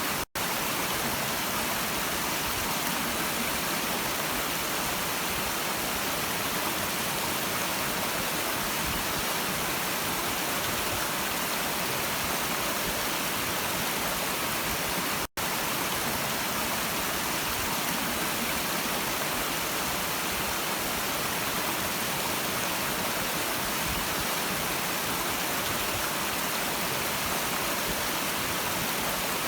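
Stream water running in a steady, even rush, dropping out for an instant twice, just after the start and about halfway through.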